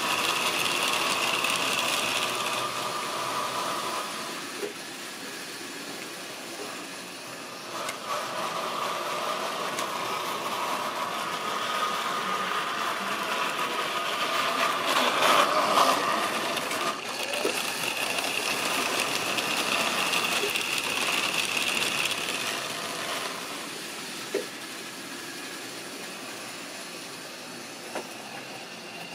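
Model railway trains running on the track: the whine of small electric locomotive motors with the rattle of wagon wheels on the rails, swelling as trains pass close and fading as they move away. A few short sharp clicks come through, one near the end.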